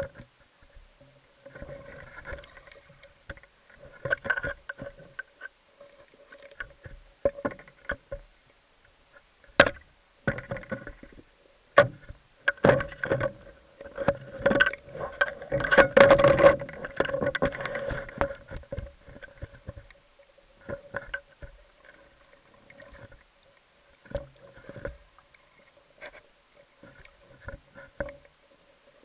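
Underwater sound through a camera's waterproof housing: scattered sharp clicks and knocks with bursts of water noise, densest and loudest around sixteen seconds in, over a faint steady hum.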